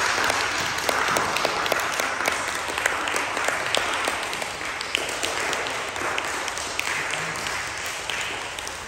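A small group of people applauding with steady, fast clapping that slowly dies down toward the end.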